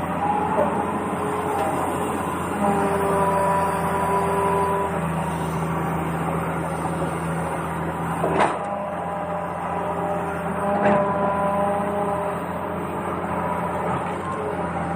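Small electric motors of a toy RC excavator whining in short runs, switching on and off and changing pitch as the controls are worked. There is a sharp knock about halfway through.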